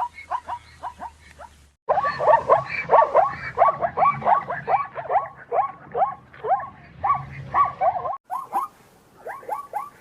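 Zebra barking: a rapid series of short, yelping calls, several a second, each dropping in pitch. It comes in spliced stretches, with abrupt cuts about two seconds in and again near the end; the middle stretch is the loudest.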